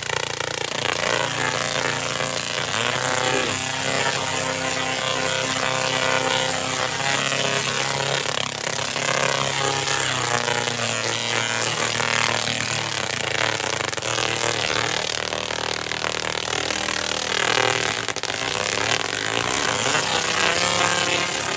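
Dual-resonant solid-state Tesla coil (DRSSTC) run in burst mode: its arcs give off a low buzzing drone over a spark crackle, the pitch shifting in steps now and then.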